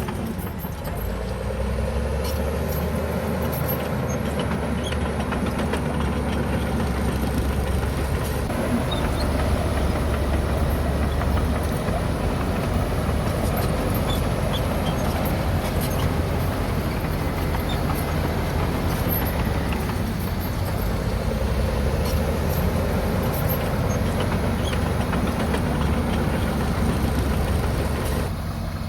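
Heavy diesel earthmoving machine running and working, a steady low engine drone that swells and eases in places.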